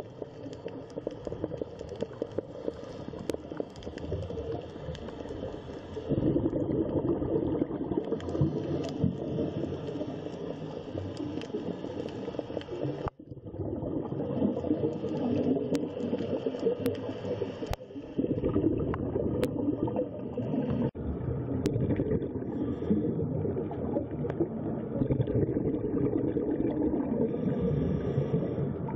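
Underwater ambience from the camera's own sound: a steady, muffled rush of water noise. It jumps in level and character at several abrupt cuts, with a brief dropout about halfway through.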